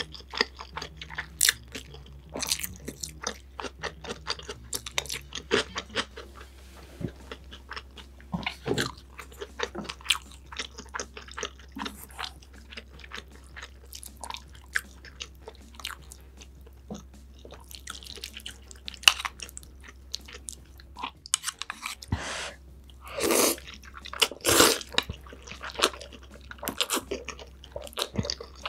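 Close-miked eating sounds of someone eating spicy instant ramen noodles: repeated chewing, with louder slurps of noodles a little after two-thirds of the way through and again near the end.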